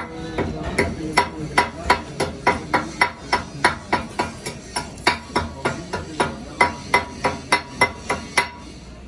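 Hammer striking metal in a steady rhythm, about three blows a second, each blow ringing. The hammering stops shortly before the end.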